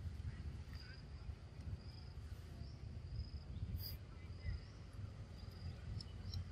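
An insect chirping in a steady rhythm, a short high call about every three quarters of a second, over a continuous low rumble.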